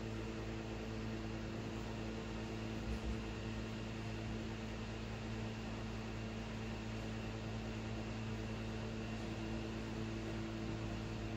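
Steady electrical hum with a constant hiss underneath: room tone. No separate sounds stand out above it.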